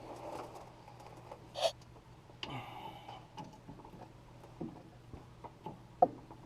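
Scattered clicks and clinks of a hand ratchet and metal hydraulic fittings being worked by hand, with a sharp metallic knock about six seconds in. A faint steady hum runs underneath.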